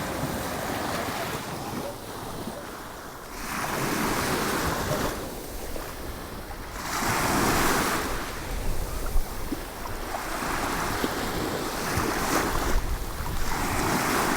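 Ocean waves breaking and washing up the beach in surges a few seconds apart, with wind buffeting the microphone as a low rumble.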